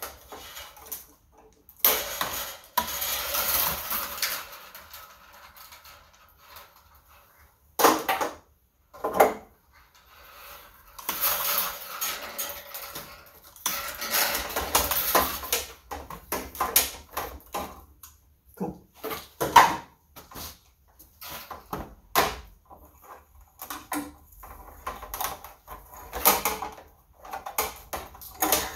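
Handling noise from a fibre-optic cable being pulled and worked by hand: longer stretches of rustling and scraping, with many scattered clicks and knocks of small plastic parts and tools.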